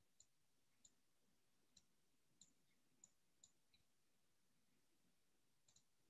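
Near silence with about eight faint, scattered computer-mouse clicks.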